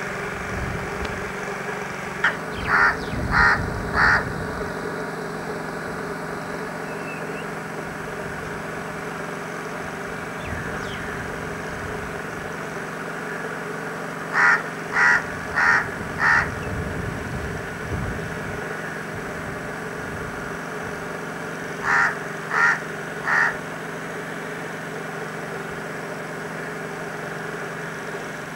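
A crow cawing in three bouts of three or four short, harsh calls each, over a steady low hum.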